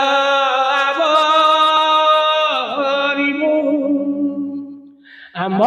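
A male singer holding one long drawn-out note of an Odia Bhagavata chant. The pitch dips about halfway through and the note fades out near the end, and a new sung phrase begins just before the close.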